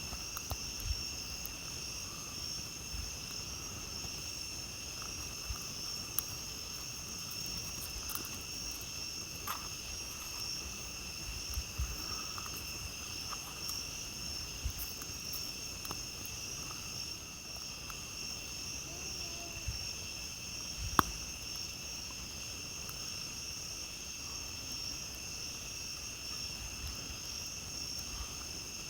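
A steady chorus of night insects chirring, with the sparse crackles and pops of a wood campfire over it. One sharp pop about two-thirds of the way through is the loudest.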